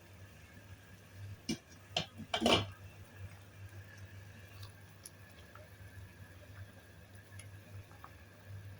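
Cookware knocking: a few short clinks, then a louder brief clatter about two and a half seconds in, like a pot lid being handled. A low steady hum runs underneath.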